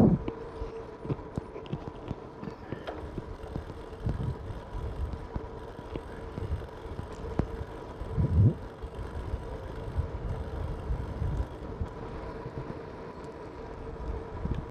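Road bike rolling along a cracked asphalt street: low rumble of tyres and wind on the microphone, with a louder thump about eight seconds in.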